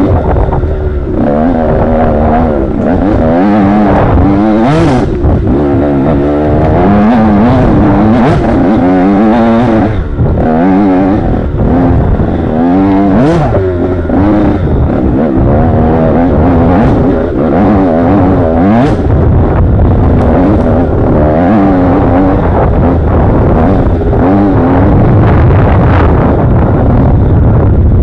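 Off-road motorcycle (dirt bike) engine being ridden hard, its pitch rising and falling again and again as the throttle is opened and closed, over a steady rumble. Occasional sharp knocks and clatter cut through, a few times across the stretch.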